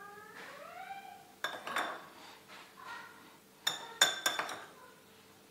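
A metal spoon clinking against a glass bowl and a metal mesh sieve as flour is spooned into the sieve: a pair of sharp clinks about one and a half seconds in, and a louder cluster of three about four seconds in.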